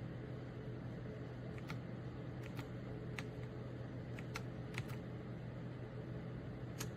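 Keys of a KOORUI full-size mechanical gaming keyboard clicking: scattered, irregular single key presses over a steady low hum.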